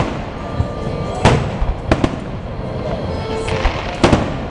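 Aerial fireworks shells bursting: a run of sharp bangs, about five in four and a half seconds at uneven spacing, the loudest about a second in and near the end, each trailing off in a short echo.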